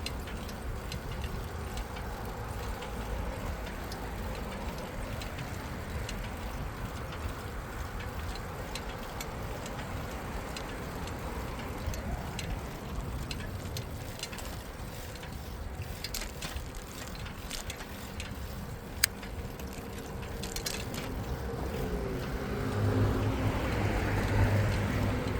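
Bicycle ride heard from the bike: a steady rush of tyre and wind noise, with scattered light clicks and ticks from the bike in the middle and one sharp click. Over the last few seconds a motor vehicle's engine hum grows louder as it passes.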